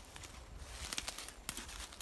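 Footsteps on the forest floor, with a few sharp clicks about a second in and again shortly after, over a steady hiss of wind.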